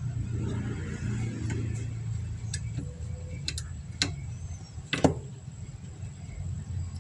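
Light clicks and taps of small circuit boards and a potentiometer being handled on a workbench: a few scattered clicks, the sharpest about five seconds in, over a steady low rumble.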